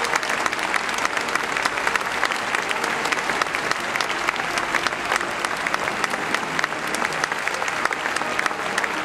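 A large audience applauding steadily, many hands clapping together without a break.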